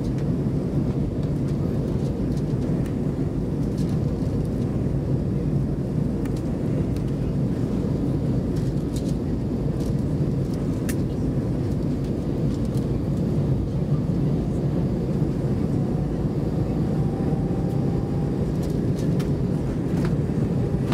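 Steady low drone of an Airbus A320-214 cabin on approach: the CFM56 engines and rushing airflow heard from inside the passenger cabin. A faint steady whine comes in about two-thirds of the way through.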